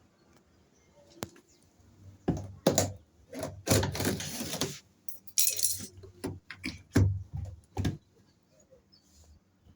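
A run of irregular clicks, knocks and short clattering sounds, with a brief hiss about halfway through.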